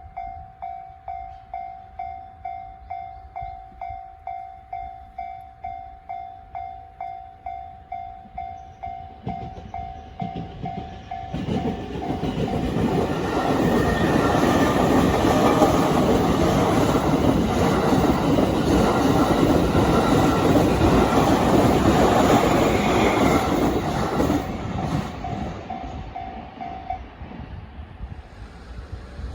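Japanese level-crossing alarm sounding the JR standard electronic bell tone, pulsing steadily at about two and a half strikes a second. About eleven seconds in, a train passes over the crossing: its wheels clatter loudly over the rails for some twelve seconds, then fade. The bell stops near the end.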